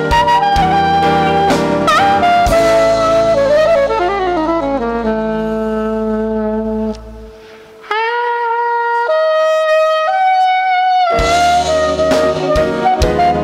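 Jazz band playing with saxophone lead, over electric bass guitar, drum kit and a Kurzweil keyboard. About seven seconds in the band stops. After a brief pause a saxophone plays a short unaccompanied phrase of long held notes, and then the full band comes back in with drums and cymbals.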